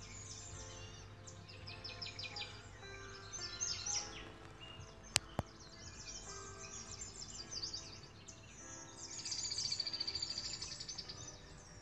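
Birds chirping over soft sustained music notes: quick high falling chirps, then a loud fast trill from about nine seconds in. Two sharp clicks just after five seconds in.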